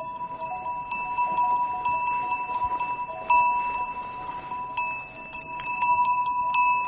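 Small bells jingling and tinkling, with one bell's steady ringing tone sustained underneath.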